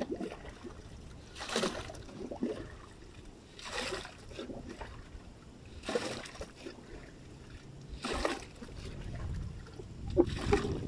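Muddy water being scooped out of a trench with a cut plastic bottle and poured into a plastic bucket, a short splash about every two seconds, five in all.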